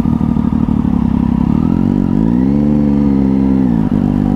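Triumph 675 three-cylinder motorcycle engine heard from on board, running at low revs, then about two seconds in the revs rise, hold for a little over a second, and drop back again.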